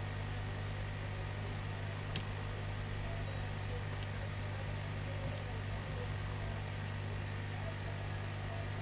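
Steady low electrical hum from running bench equipment, with a faint click about two seconds in.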